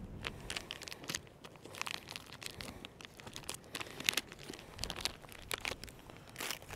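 Irregular crinkling and crunching, a quick string of short crackles about two or three a second.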